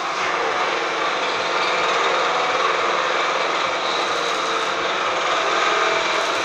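Steady mechanical noise, like an engine or machine running, with no breaks or distinct strokes.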